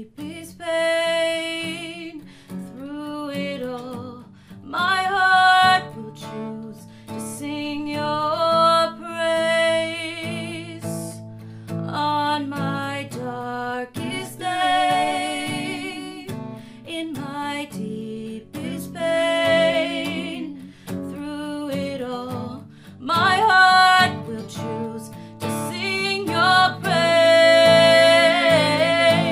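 A woman and a man singing a worship song together to guitar accompaniment, in sung phrases of a second or two with short gaps.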